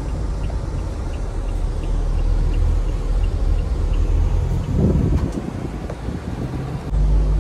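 Toyota Innova Crysta's 2.4-litre four-cylinder diesel engine heard from inside the cabin while driving, a steady low drone. This is the engine noise that reaches the cabin in the lower gears, which the driver puts down to a lack of insulation. The rumble swells just before the end.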